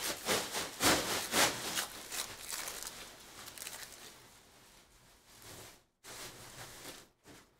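Foil wrapper of a Donruss basketball hobby pack being torn open and crinkled, a quick run of sharp crackles in the first couple of seconds. This fades into the softer rustle of the card stack being slid out and handled.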